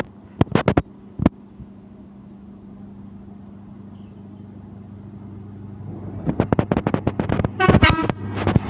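A train approaching: a low engine hum grows slowly louder, with scattered sharp clicks in the first second and a flurry of rapid clicks and a short loud burst near the end.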